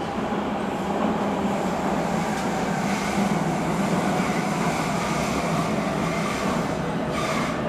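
Metro train running between stations, heard from inside the car: a steady rumble of wheels on rail with a low, even hum.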